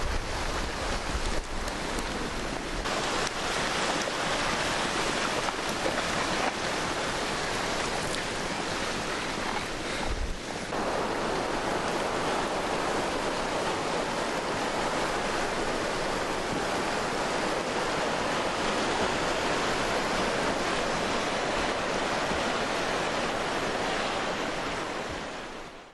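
Flash-flood water rushing down a wash: a steady, even rush of water noise that fades out at the very end.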